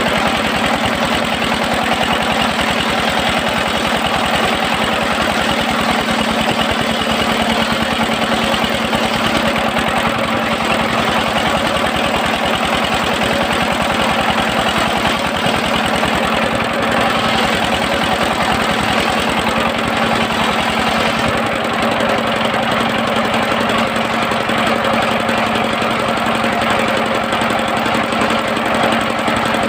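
Engine-driven circular sawmill running steadily with a constant engine drone. The deepest part of the sound drops away about two-thirds of the way through.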